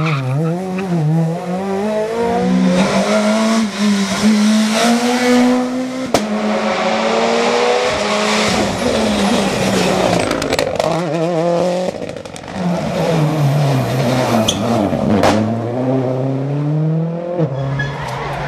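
Rally car engine revving hard, its pitch climbing and dropping again and again through gear changes and braking, with two sharp cracks, one about six seconds in and one about fifteen seconds in.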